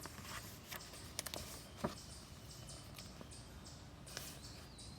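Faint background with a few soft clicks and small rustles: handling noise, about a second and two seconds in, with a faint short chirp near the end.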